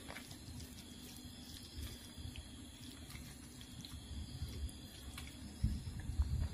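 Fingers mixing rice with chicken curry on a steel plate: quiet wet squishing with a few faint taps, louder near the end.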